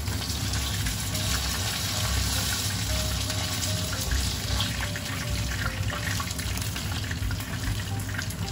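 Chicken karaage deep-frying in hot oil in a frying pan: a steady, loud sizzle with small crackles and pops. Soft background music plays underneath.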